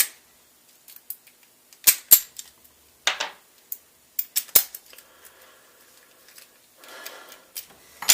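Padlocks and lock picks being handled: a series of sharp metal clicks and clacks with brief ringing. The sharpest come at the start, about two seconds in, midway and at the end, with a softer scrape shortly before the end.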